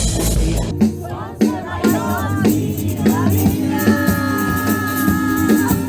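Pop song with singing: a sung vocal line over a steady beat, and a long held note in the second half.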